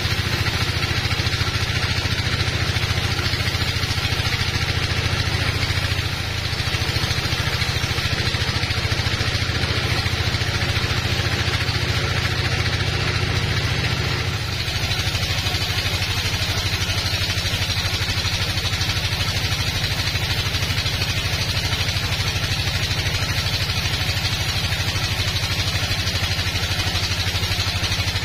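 Band sawmill cutting through a teak log: a steady machine drone with the hiss of the blade in the wood. The drone dips slightly about halfway through.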